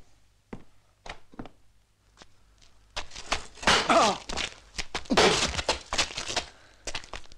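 Scattered footsteps and knocks, then about three seconds in a loud brawl breaks out: men shouting and yelling over the thuds and scuffling of a fistfight.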